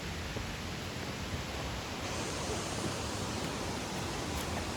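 Steady, even rushing noise of flowing water from the creek, with no breaks; it gets slightly hissier about two seconds in.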